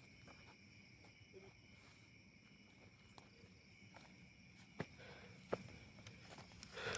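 Night insects such as crickets chirping steadily and softly, with two sharp clicks about five seconds in.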